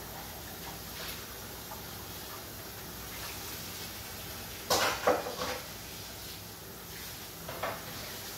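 Dishes and kitchenware clattering at a kitchen sink during washing up: a quick run of knocks about halfway through and a softer knock near the end, over a steady background hiss.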